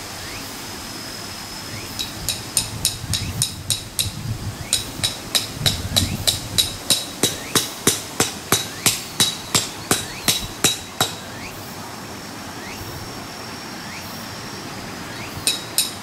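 Tent stake being hammered into the ground to anchor a tarp guy line: quick, evenly spaced metallic strikes with a bright ring, about four a second. A short run comes about two seconds in, a long one from about five to eleven seconds, and another starts near the end.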